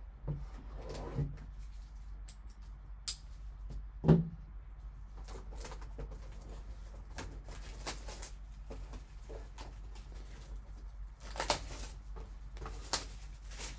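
Gloved hands handling a cardboard trading-card box: light rustles and clicks, a sharp knock about four seconds in, and longer rustling bursts near the end, over a low steady hum.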